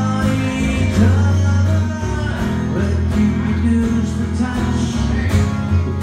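Acoustic guitar strummed steadily, playing a song.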